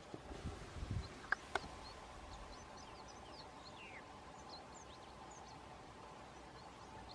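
Faint outdoor bush ambience: small birds giving scattered short chirps and whistles, one a falling whistle a few seconds in, over a faint steady high hum. In the first two seconds there are a few low bumps and two sharp clicks.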